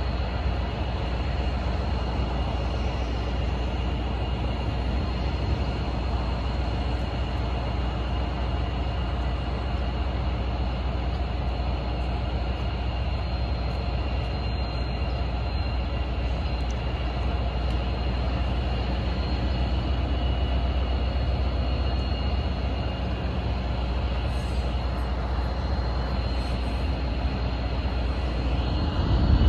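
Siemens SC-44 Charger diesel-electric locomotive standing with its engine running: a steady low rumble with a thin, constant high whine over it. The sound rises in the last second as the engine picks up.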